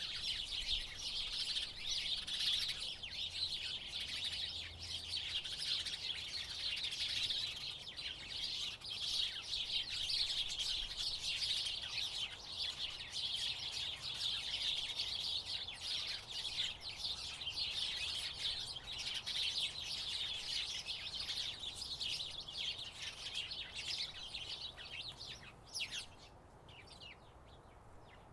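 House sparrows chirping in a dense, continuous chatter of many overlapping chirps. Near the end the chatter drops away suddenly, leaving a few scattered chirps.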